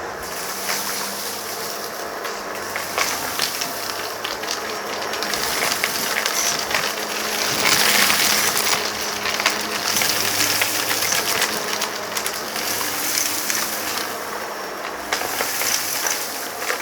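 Vacuum cleaner running steadily, close-miked, as it is pushed over a rug, with a dense crackle of sand and grit rattling up into the nozzle. It swells louder about halfway through.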